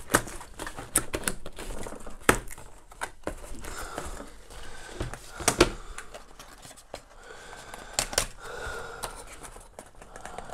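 Cardboard packaging being handled by hand: irregular sharp knocks and taps as the box and its card inserts are moved, with light rustling between.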